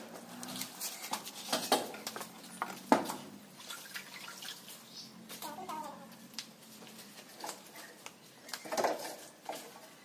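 Scattered light clicks and taps of steel rebar being handled and set onto a nailed wooden bending jig, with a sharper knock about three seconds in.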